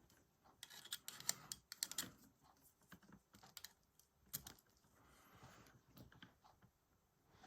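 Faint, scattered plastic clicks and clacks of a mechanical keyboard and its cable being handled and plugged into a USB-C hub. The clicks come thickest in the first couple of seconds, then a few more.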